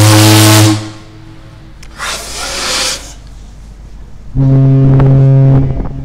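SS Shieldhall's steam fog horn sounding two deep blasts, a short one at the start and a longer one of about a second and a half near the end, with a burst of hissing in between.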